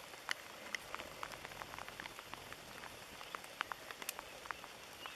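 Light rain falling on a pond: a soft, steady hiss with scattered sharp drip ticks.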